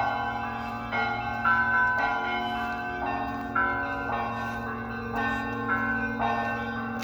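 Russian Orthodox church bells ringing: several bells struck in a repeating pattern, about one to two strikes a second, their tones overlapping over a steady low hum.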